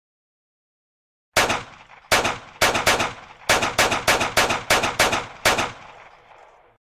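Handgun gunshot sound effects: about eleven shots fired in quick, uneven succession, starting about a second and a half in, each with a short ringing tail that fades out after the last shot.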